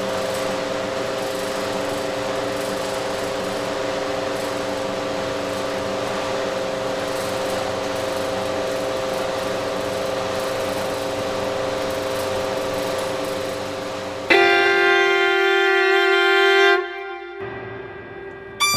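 Droning music: a steady sustained drone with a held hum. About fourteen seconds in, a loud held pitched tone comes in suddenly, lasts a couple of seconds, then drops away.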